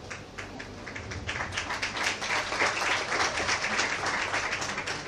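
Audience applauding: a few scattered claps that swell into full applause about a second and a half in, then thin out near the end.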